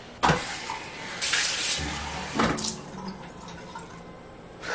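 Water running from a bathroom washbasin tap for about a second and a half, then a shorter burst of splashing a little later.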